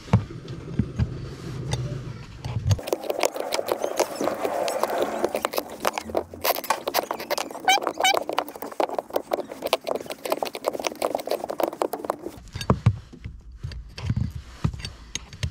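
Hand ratchet clicking in quick, uneven runs as it turns the top nut down onto a rear shock absorber's upper mount. A few short squeaks come about halfway through.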